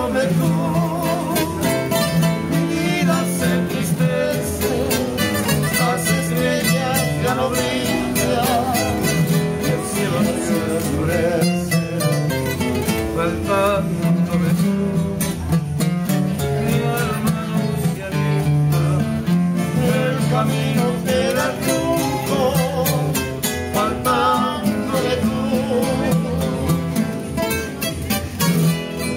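Two acoustic guitars playing together. One picks a melody with vibrato over the other's strummed chords and bass notes.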